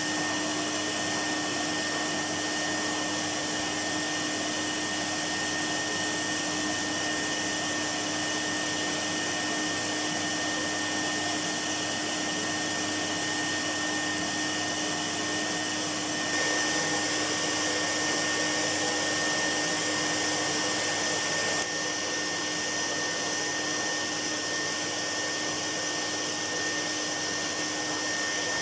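1973 Goblin 702 cylinder vacuum cleaner running in use, its bypass motor giving a steady airflow noise with a constant hum and a thin high whistle. It gets a little louder and brighter for a few seconds past the middle, then settles back.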